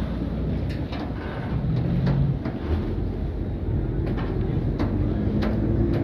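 Steady low rumble of a passenger riverboat under way, its engines running, with a few short sharp knocks scattered through it.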